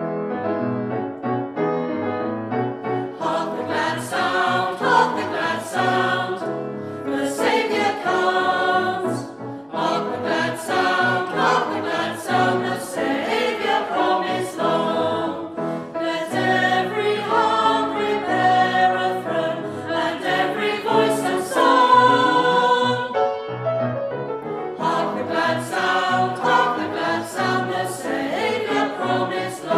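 Mixed choir of men's and women's voices singing a Christmas carol with grand piano accompaniment. The music begins with the piano, and the voices come in about three seconds in.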